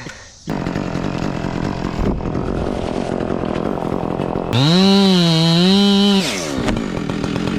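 Chainsaw running, starting about half a second in, then revved high for about a second and a half past the middle before dropping back to a lower, steadier speed.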